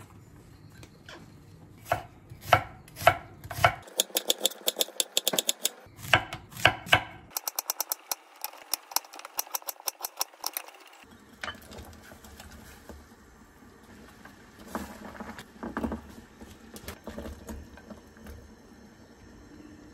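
Knife chopping vegetables on a wooden cutting board: a few separate cuts, then two long runs of fast, even knocks. After that come softer scattered knocks and handling sounds.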